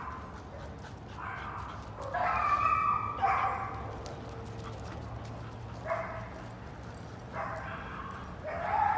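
A dog giving short high-pitched yips and whines, about five calls, the loudest and longest about two to three seconds in.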